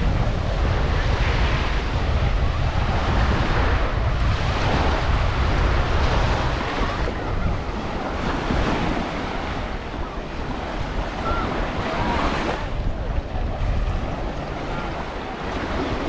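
Sea surf washing onto a sandy beach, with wind rumbling on the microphone, heaviest in the first half and easing after about seven seconds.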